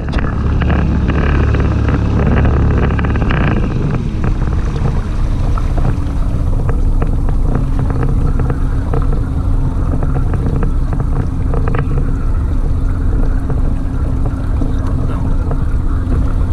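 A small boat's outboard motor running, with water and wind noise around it. The heavy low rumble eases about four seconds in, leaving a steady hum.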